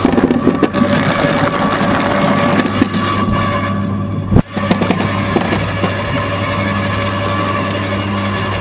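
Electric motor of a homemade apple scratter (apple grinder) running steadily with a constant hum. Apples clatter into the hopper in the first second, and there is a brief dropout and a sharp click about four and a half seconds in.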